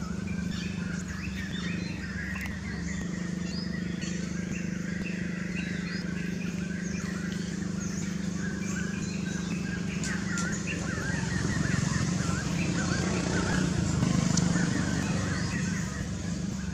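Birds chirping and twittering, with many short calls overlapping above a steady low hum; the chatter grows busier and louder past the middle.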